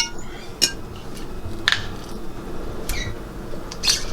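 A utensil clinking against dishes and a pan, four or five separate knocks spread over a few seconds.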